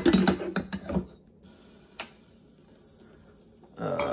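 Glass coffee carafe of a Moccamaster drip brewer being handled: a sharp knock and about a second of clinking and clattering at the start, a single click about two seconds in, then a short scrape and clink near the end as it is set back onto the warming plate.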